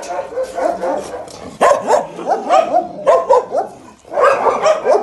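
Several kennelled dogs barking and yipping in quick, overlapping volleys, with a brief lull near the end.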